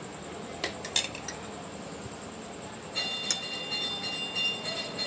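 Utensils clinking on dishware while sandwich filling is spread on bread: two sharp clinks about a second in, then a clink near the middle after which the dish rings for nearly two seconds.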